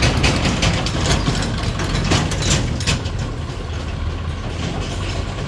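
Heavy diesel engine running steadily, with a rapid series of rattling clicks and knocks over the first three seconds.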